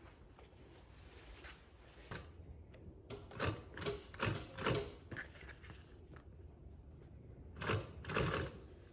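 Highlead double-needle sewing machine stitching in short spurts: a cluster of quick bursts a few seconds in and two more near the end.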